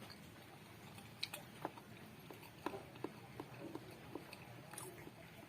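Close-miked chewing of egg in an eating ASMR recording: a run of soft, wet mouth clicks and smacks, irregularly spaced, over a faint low hum.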